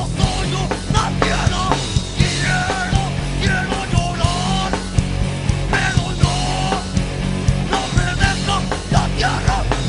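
Rock music: a full band with drums keeping a steady beat under distorted guitar and a lead melody line.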